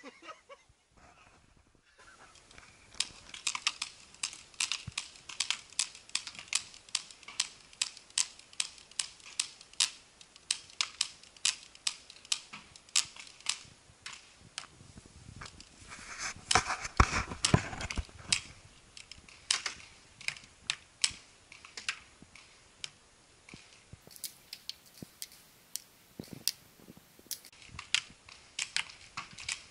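Paintball markers firing a long run of single shots, about two or three sharp pops a second, with a louder, denser stretch a little past halfway.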